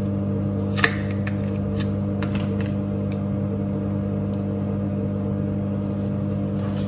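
Steady electrical hum of a microwave oven running, with a few sharp plastic clicks and taps from a de-shedding tool being handled, the sharpest about a second in.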